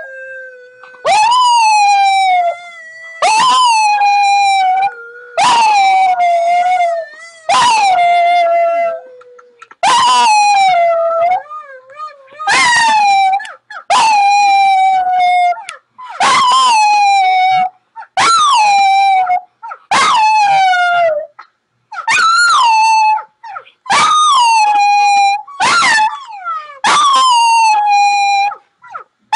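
A dog howling over and over in about a dozen short howls, each about a second long, starting high and sliding down before it breaks off.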